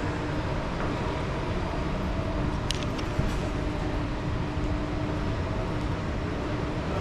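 Steady background noise of an underground shopping mall: an even rumble with a low hum running through it, and a couple of sharp clicks just under three seconds in.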